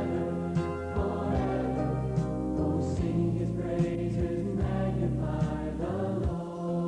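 Music with a choir singing slow, sustained chords.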